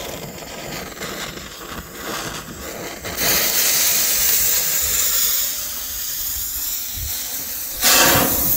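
Funke Geysir Kaliber C firework fountain spraying sparks with a loud, steady hiss that starts about three seconds in. The hiss swells louder near the end as the fountain flares up.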